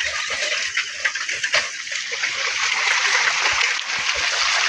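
Water splashing and sloshing as a bicycle's tyres and feet go through muddy puddles on a flooded dirt track, a steady splashing hiss that grows a little louder about halfway through.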